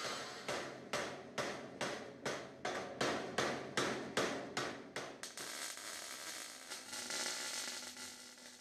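About a dozen sharp metal strikes, roughly two and a half a second, as a hammer knocks on a steel mount part at the bench. A little after five seconds in they stop, and the steady crackling hiss of a welding arc takes over.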